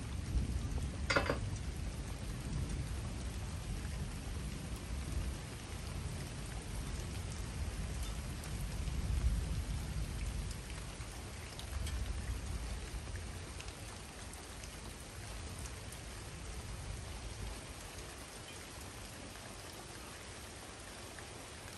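Steady rain falling during a thunderstorm, with a low rumble of thunder over the first half that dies away. There is a brief sharp sound about a second in.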